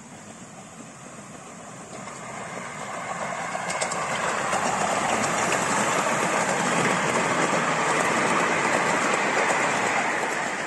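Miniature railway train running past close by: wheels rolling and clattering on the rails, growing louder as it approaches and staying loud while the carriages go by, just starting to ease off at the end.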